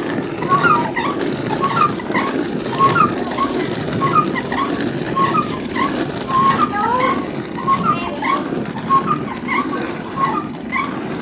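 Traditional hand-turned rotary rice husking mill, its woven-and-clay upper half pushed round by a wooden pole, making a steady grinding rumble as it husks paddy rice. Short high chirps repeat about twice a second over it.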